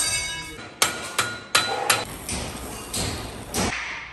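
Hammer striking metal during exhaust fitting: about seven sharp blows at uneven intervals, the first ringing briefly.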